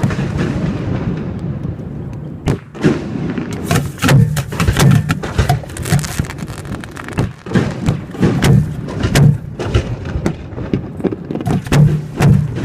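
Aerial firework shells fired from mortar tubes close by, a rapid, irregular string of loud bangs as shells launch and burst, with a brief lull about two and a half seconds in.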